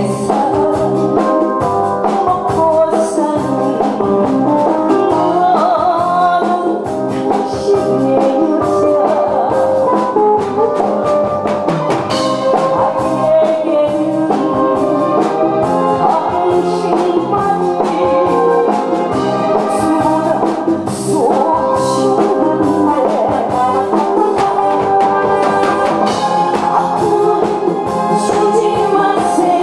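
A woman singing into a handheld microphone over instrumental accompaniment led by brass.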